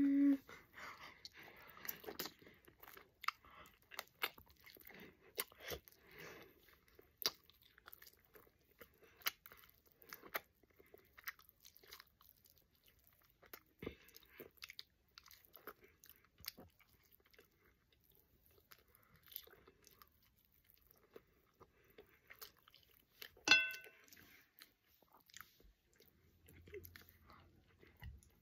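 Quiet chewing and biting of bone-in hot chicken wings, with many small wet smacks and crunches of teeth and lips on the meat. About 23 seconds in, one brief, sharp pitched squeak stands out above the chewing.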